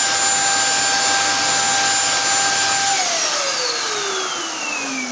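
Wagner electric paint spray gun running: a steady high motor whine over a strong rush of air while it sprays. About three seconds in it is switched off and the whine falls in pitch as the motor spins down.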